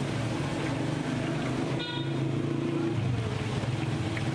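Battered fish pieces sizzling as they deep-fry in hot oil in a large iron karahi, over a steady low hum. About two seconds in there is a short high tone.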